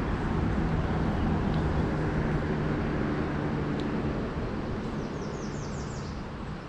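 Road noise and the low hum of a vehicle passing on a nearby road, fading away over the first four seconds. A bird gives a quick run of about six high chirps near the end.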